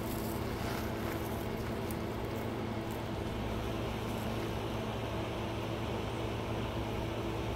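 A steady low machine hum, with a few faint clicks of handling in the first second or so.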